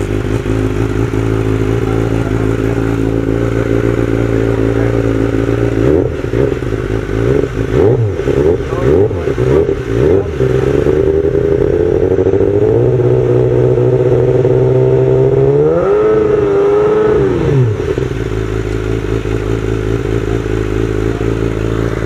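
A race superbike's engine is running on the stand for a scrutineering exhaust noise test. It idles, then takes a series of quick throttle blips from about six to eleven seconds in. It is then held at a steady higher rpm, rises once more briefly and drops back to idle near the end.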